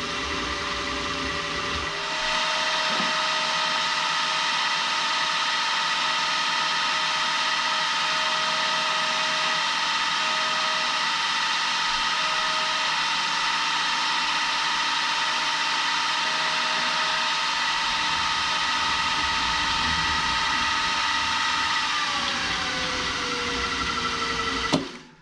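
Machine motor running steadily while drilling a hole in the engine's metal cylinder block. It picks up about two seconds in, then winds down with a falling whine near the end and cuts off abruptly.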